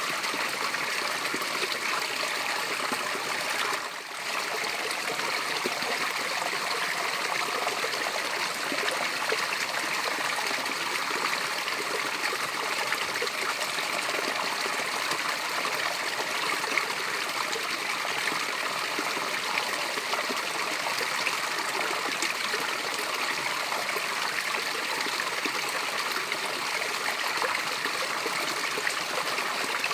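Small natural waterfall, water cascading and splashing in an even, steady rush, with a brief dip in level about four seconds in.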